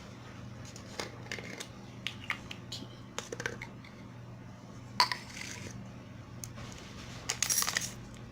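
Small spoon clinking and tapping against a container while baking soda is scooped out: scattered light clicks, with a louder cluster near the end.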